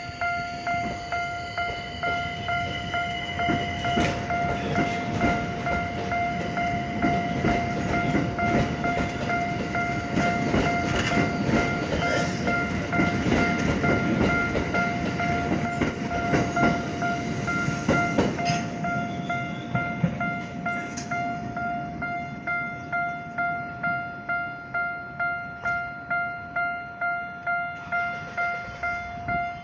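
Japanese level-crossing warning bell ringing steadily, about one and a half strikes a second. A Tokyo Metro Ginza Line 1000-series train rumbles over the crossing from about four seconds in until about twenty seconds in, its wheels clacking over the rail joints.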